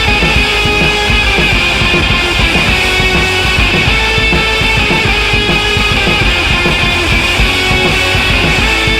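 Rock music with guitar and a steady beat, playing continuously at a loud level.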